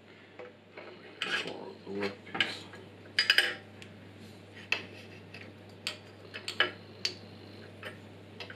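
Irregular clinks and knocks of metal being handled: a metal bar set into a drill press's machine vise and a steel rule laid against it. The loudest cluster of clanks comes in the first few seconds, then sparser light taps.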